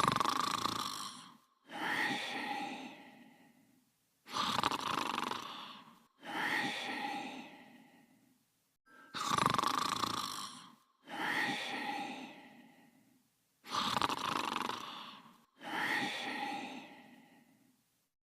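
Cartoon character snoring: eight snores in four pairs, a long snore in and a snore out, each starting suddenly and trailing off over a second or two.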